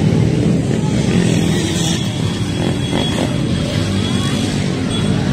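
Dirt bike engine running on a motocross track, its pitch rising and falling as it is ridden.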